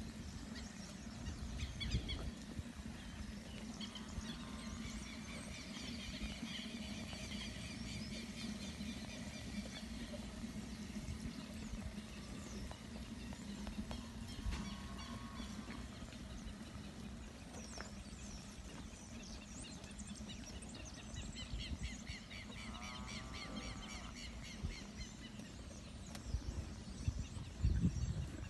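Outdoor ambience at a cattle pen: a steady low background noise with birds chirping in bursts, a few short high animal calls, and handling rustles and knocks near the end.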